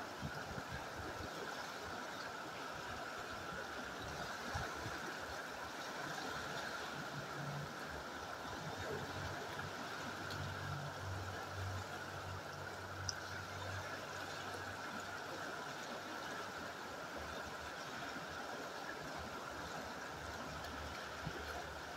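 Steady rush of a fast-flowing river. A faint low hum sits under it for several seconds in the middle.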